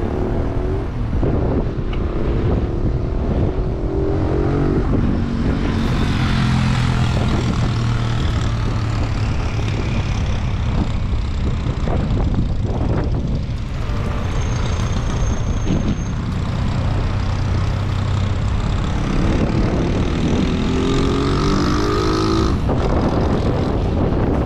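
Road traffic: motor vehicles running past, their engine note rising and falling as they come and go, over a steady rush of wind on the microphone.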